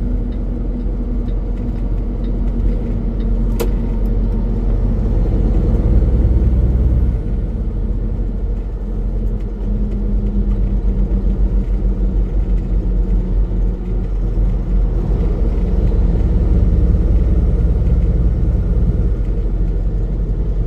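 Semi-truck's diesel engine and road noise, a steady low drone while driving. The engine note and level drop slightly about seven seconds in, and a single sharp click sounds about three and a half seconds in.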